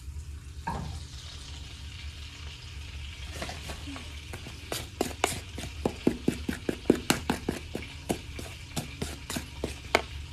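Butter sizzling as it melts in a frying pan on a gas burner. From about a third of the way in, a utensil stirring dry pancake mix knocks quickly and repeatedly against the mixing bowl, about three or four knocks a second, louder than the sizzle.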